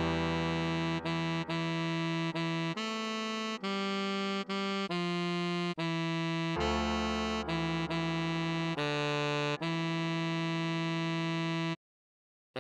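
Synthesized tenor saxophone playing a slow melody one held note at a time, with short breaks between notes, over a low sustained backing chord that comes and goes. The tune breaks off for under a second near the end.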